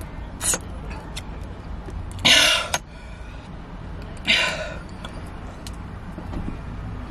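A person coughs twice, about two seconds apart, over a steady low rumble.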